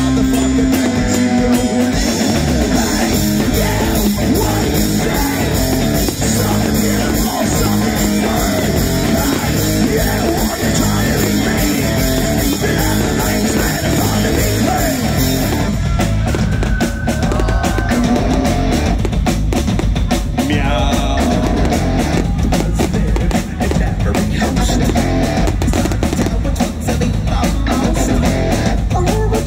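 Live rock band playing loud on an outdoor stage: drum kit and electric guitars, with the bright high end of the mix thinning out about halfway through.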